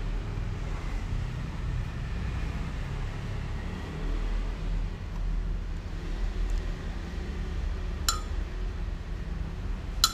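Steady low background rumble, with a metal spoon clinking against a glass blender jar twice: once about eight seconds in and again at the very end.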